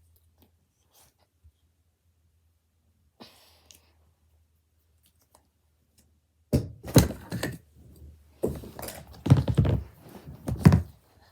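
A run of loud thumps and rustling handling noise close to the microphone, starting about six and a half seconds in after near quiet.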